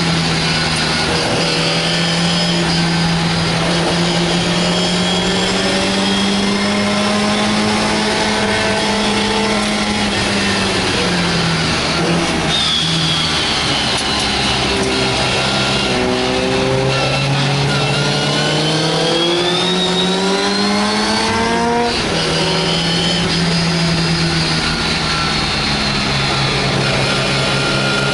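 MGA's four-cylinder race engine pulling hard from inside the cockpit, its pitch climbing with revs, falling as the driver lifts around ten seconds in, then climbing steeply again before dropping sharply at a gearshift about 22 seconds in. A thin high whine rises and falls with it over steady wind rush.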